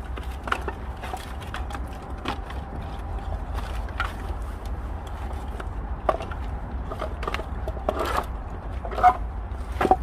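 Scattered wooden knocks and clatter of broken pallet wood being handled and gathered, the loudest near the end, over a steady low rumble.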